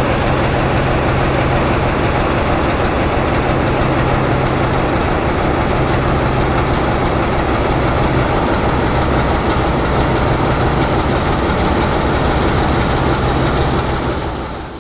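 ND2 diesel-electric locomotive's Sulzer diesel engine idling steadily after start-up, a constant low hum with no change in speed, fading out near the end.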